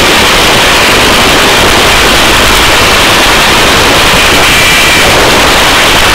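A helicopter running in a hover, heard from inside the cabin with the door open: a loud, steady, rough noise with no distinct beat.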